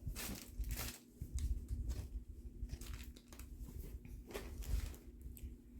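Rustling and crinkling from handling stored linens, with irregular soft bumps.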